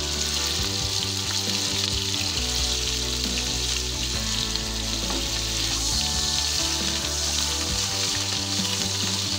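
Cauliflower florets frying in hot vegetable oil in a kadai, with a steady sizzle. A wooden spatula stirs the florets near the end.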